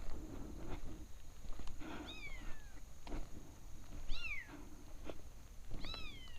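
Kitten meowing three times, about two seconds apart, each a high call that falls in pitch: the crying of what sounds like an abandoned kitten.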